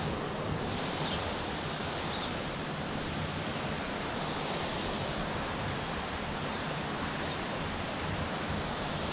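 Steady rushing of fast-flowing river water swirling below a concrete wall.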